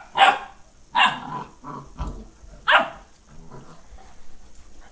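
Newfoundland dogs, mother and puppy, barking as they play: three louder barks in the first three seconds with softer ones between.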